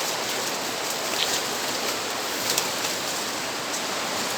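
Steady rushing of nearby running water, an even hiss, with a few faint ticks about a second in and again near two and a half seconds.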